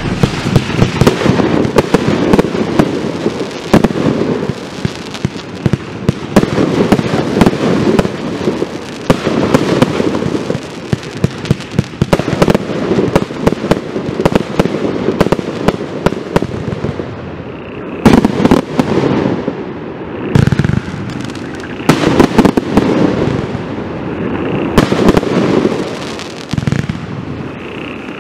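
Rubro Event Thunder and Roses 120-shot compound fireworks cake firing: a rapid, continuous run of shots launching and bursting with crackling, in pulsing clusters. The loudest bang comes about eighteen seconds in.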